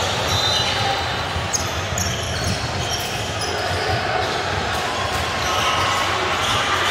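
Basketball game noise in a large, echoing sports hall: the ball bouncing on the hardwood court and short high sneaker squeaks, over a steady din of players' and spectators' voices.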